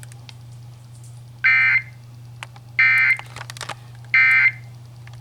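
Emergency Alert System end-of-message code: three short, identical bursts of buzzing digital SAME data tones, evenly spaced about a second and a half apart, marking the end of the alert message. A steady low hum runs underneath.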